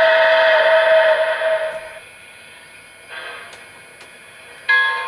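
Steam locomotive whistle from a model Union Pacific 4-12-2's sound system: one long chord-like blast lasting about two seconds, then a fainter, shorter sounding about three seconds in. The locomotive bell starts ringing near the end.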